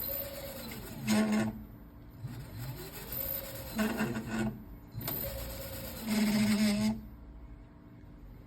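An electric motorcycle's brake making noise each time it is applied, three times. Between the brake applications there is a whine that rises and falls as the wheel speeds up and slows down.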